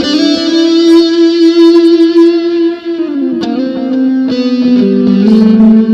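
Electric guitar played through a Waldman Super Chorus Ensemble chorus pedal: held chords ring out, then slide down into a new chord about three seconds in, and a fresh chord is struck just after four seconds.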